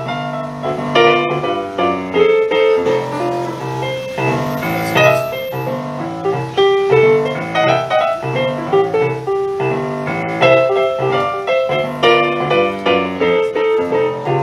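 Dexibell Vivo digital stage piano played live and amplified through a loudspeaker: a continuous flow of chords and melody.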